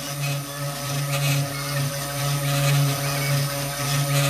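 3018 PRO desktop CNC engraver milling MDF with a 3 mm ball end mill: its spindle and stepper motors run with a loud, steady low hum that swells and eases as the tool moves along the path.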